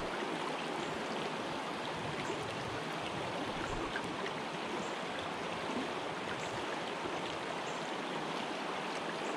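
Shallow mountain creek rushing steadily over a rocky riffle.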